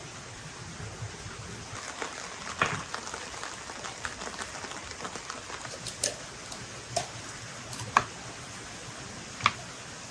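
Steady rain falling, with a handful of sharp knocks and clicks scattered through it.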